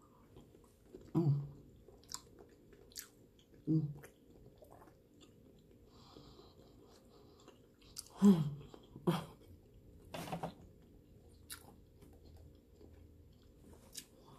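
A person chewing Alfredo-dipped garlic shrimp close to the microphone, with scattered wet mouth smacks and clicks and a few short hummed sounds of enjoyment.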